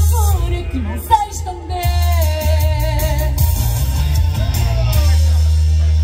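Pop music with a heavy bass beat and a voice singing gliding lines over it; about five seconds in the bass settles into a steady held note.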